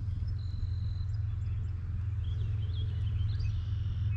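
Birds chirping and calling in short, high whistles over a steady low rumble.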